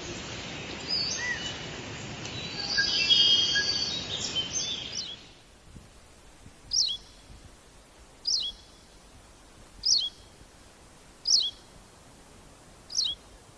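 Berthelot's pipit calling: five short, high notes, each sliding down in pitch, spaced about a second and a half apart. For the first five seconds there is louder, busier bird song over a noisy background.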